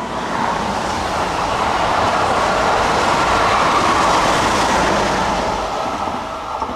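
A train passing on the line, its rolling noise swelling to a peak midway and then fading away.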